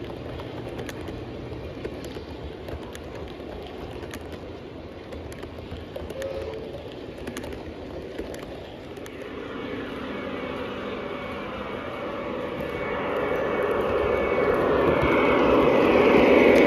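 Lionel Legacy O-gauge model train running on track and approaching. Its rumble, with steady tones in it, grows louder from about halfway through and is loudest at the end.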